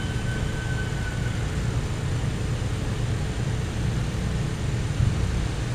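Steady low rumble of outdoor background noise, with a faint high whine that stops about a second in.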